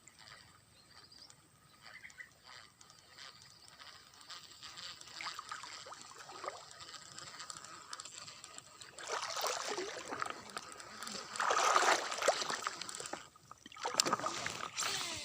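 Irregular splashing and sloshing of water, louder in two stretches in the second half.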